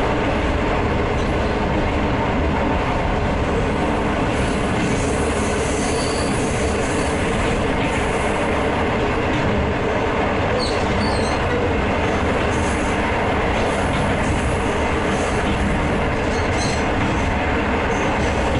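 Diesel-hauled passenger train's coaches running along the rail: a steady rumble of wheels on track, with brief high wheel squeals about ten seconds in and again near seventeen seconds.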